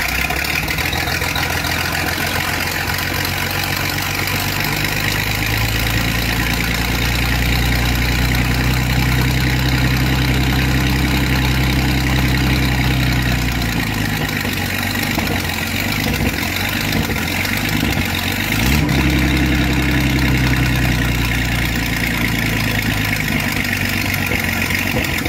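Freshly rebuilt Chris-Craft Hercules marine engine running on a test stand just after starting. It idles, is brought up to a higher speed about a fifth of the way in and held there, then drops back unevenly, rises briefly once more and settles to a steady idle.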